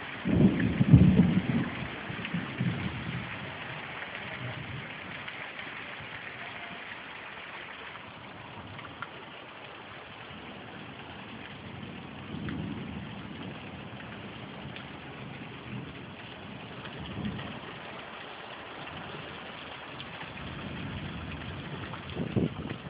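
Rain falling steadily through a thunderstorm. A loud clap of thunder comes about half a second in and rumbles away over the next few seconds. Fainter low rumbles follow later, the last near the end.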